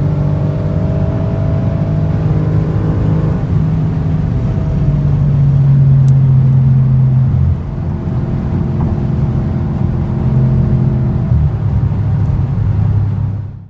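Car engine and road noise heard from inside the cabin at motorway speed. The engine note steps lower about four and a half and seven and a half seconds in, the second time with a brief dip in level, then runs steady before fading out at the very end.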